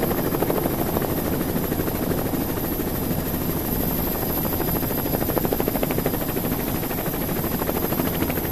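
Military attack helicopter flying overhead, its rotor beating rapidly and steadily.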